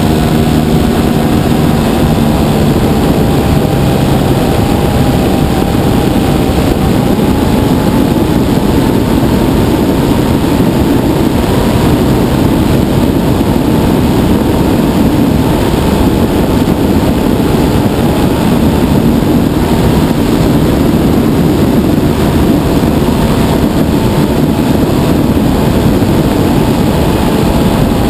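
The engine and propeller of a 60%-scale RC Piper Cub running steadily in flight, heard from a camera on board, with a dense rush of airflow over the engine note.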